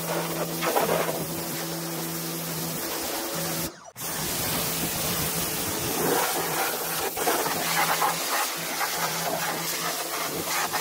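Pressure washer spraying water onto a tractor: a steady hiss of spray over a steady low hum. It cuts out briefly about four seconds in.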